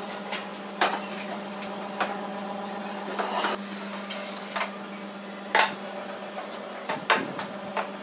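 Wooden knocks and clatters as a slatted wooden folding chair is set down on a tile floor and its frame is shifted and unfolded, about six separate knocks over a steady low hum.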